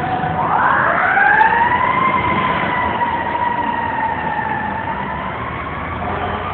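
Fire truck siren wailing: its pitch rises steeply about half a second in, holds, then slowly falls, over the low rumble of the truck's engine.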